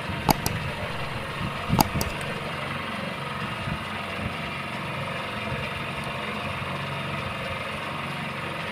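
Steady hum of an engine running on a fishing boat at night, with a few sharp knocks in the first two seconds.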